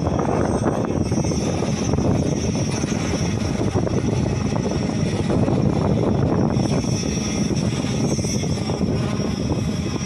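Construction machinery engines running steadily during a concrete slab pour, a dense continuous rumble.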